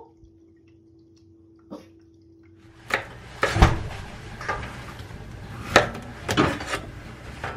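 Kitchen knife chopping a zucchini on a stainless steel cutting board: a series of sharp, uneven knocks of the blade striking the board, starting about three seconds in. Before that there is only a faint steady hum.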